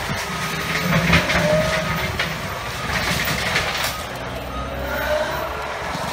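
Cat 289D compact track loader's diesel engine running as the machine works through brush, with repeated short cracks and knocks over the engine.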